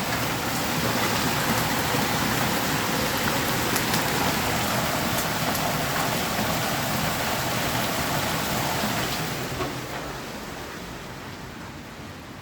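Hail and heavy rain pelting down: a dense hiss with occasional sharp ticks of stones striking. It eases off, growing quieter and duller, about ten seconds in.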